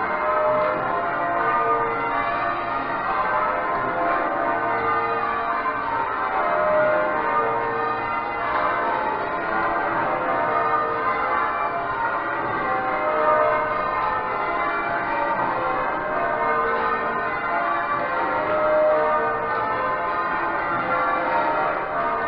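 Change ringing on Exeter Cathedral's ring of twelve bells, the heaviest weighing about 72 cwt: a steady stream of bell strokes whose tones overlap and ring on into one another.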